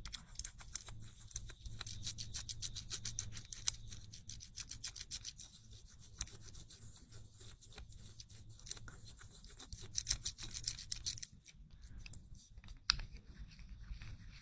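Small fidget toy worked by hand close to the microphone: rapid, irregular soft clicks and scratches. They thin out about eleven seconds in, and one sharper click follows.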